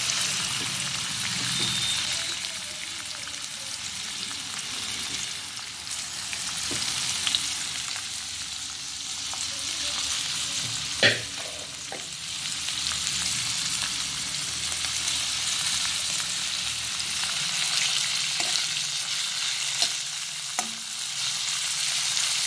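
Prawns sizzling steadily in hot oil in a well-seasoned Calcutta kadai, freshly dropped in to fry. A single sharp knock about eleven seconds in, and a few faint clicks later.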